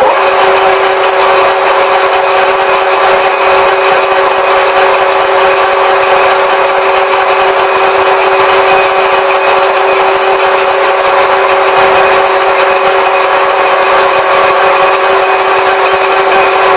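IT-1M lathe running under power with a steady gear whine, taking a half-millimetre finishing cut.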